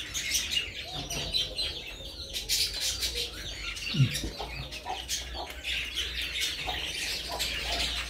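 Many small birds chirping and peeping, with a hen clucking at intervals. There is a brief low thud about four seconds in.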